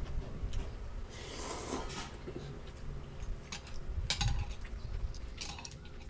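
Tableware clatter at a meal: chopsticks and spoons tapping and clinking against bowls and cups in scattered light clicks.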